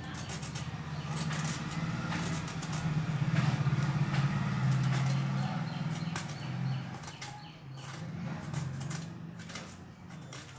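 Hand peeling of a ridge gourd: repeated short scraping strokes of a peeler on the gourd's skin. Under it runs a low droning hum that swells in the middle and fades toward the end, and this hum is the loudest sound.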